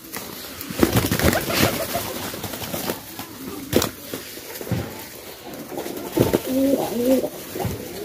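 A flock of domestic pigeons crowding round a hand full of grain: scattered sharp wing flaps and scuffles, with low cooing towards the end.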